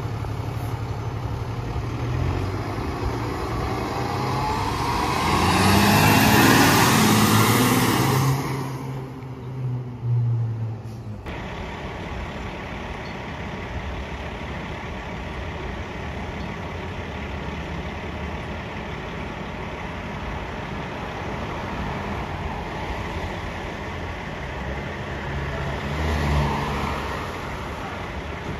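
Fire engine's diesel engine accelerating as it drives past, loudest about six to eight seconds in. After an abrupt cut about eleven seconds in, a steadier, quieter engine sound of fire apparatus idling in a firehouse bay, with a brief swell near the end.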